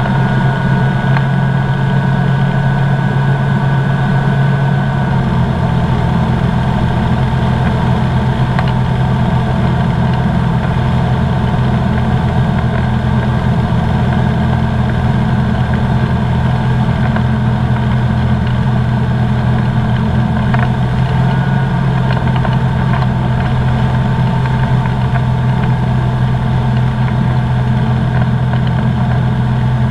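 Comco Ikarus C42B ultralight's engine and propeller droning steadily in flight, heard from inside the cockpit, with a slight change in the drone about five seconds in.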